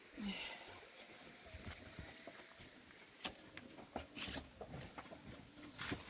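Faint, scattered knocks, clicks and brief rustles of people moving about and handling things.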